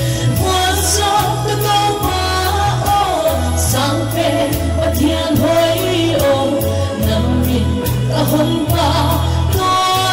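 A song sung live over a band backing, with a steady drum beat and a bass line that shifts every second or so.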